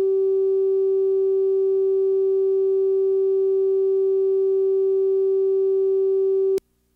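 Steady, loud, mid-pitched line-up tone that accompanies the color bars and slate at the head of a broadcast videotape. It cuts off abruptly about six and a half seconds in, leaving near silence.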